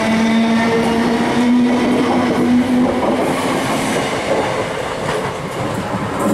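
ScotRail Class 318 electric multiple unit running away along the platform: steady wheel-on-rail rolling noise with a motor whine that rises slightly in pitch for the first three seconds, then fades into the rumble.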